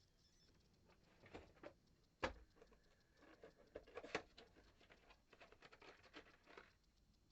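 Screws and small hardware being picked through by hand: a run of light clicks and rattles, with a sharp knock about two seconds in and another about four seconds in.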